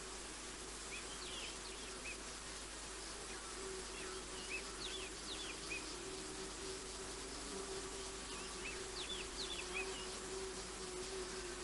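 Natural bush ambience: small birds give short, scattered high chirps over a steady low insect drone, which grows louder about four seconds in.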